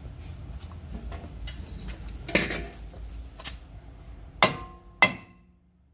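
A hammer knocking on a car's front hub bearing assembly to loosen it in the steering knuckle: about five sharp metallic strikes, the loudest three near the middle and end, each with a brief ringing.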